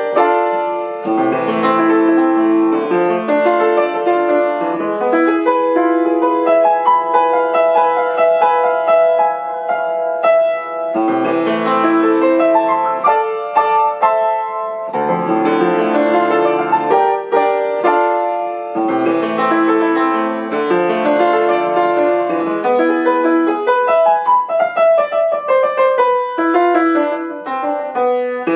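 Solo piano playing a lively piece in quick, continuous runs of short notes.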